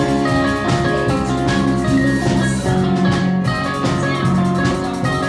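Rock band playing live: drum kit beating a steady rhythm under electric guitar, bass and keyboard.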